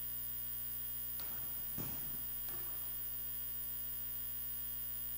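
Steady electrical mains hum, with a few faint light clicks and knocks.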